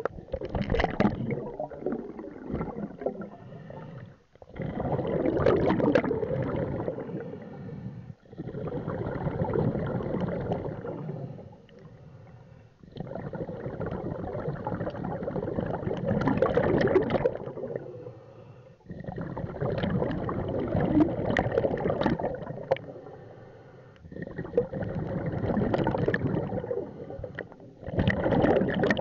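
Scuba diver breathing underwater through a regulator: each exhale sends out a gurgling rush of bubbles, with short quieter gaps between breaths, in a steady cycle of roughly one breath every four to five seconds.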